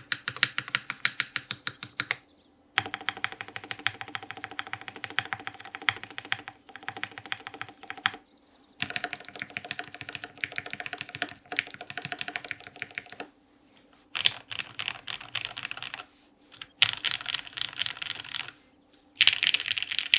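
HH60 mechanical keyboard being typed on fast, clacking keystrokes in bursts of a few seconds with short breaks between them, including slaps on the stabilized keys.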